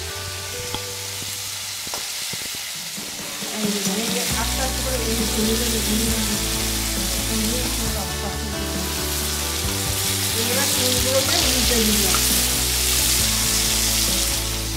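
Whole giant freshwater prawns sizzling as they fry in hot oil in a wok, turned over with a metal spatula.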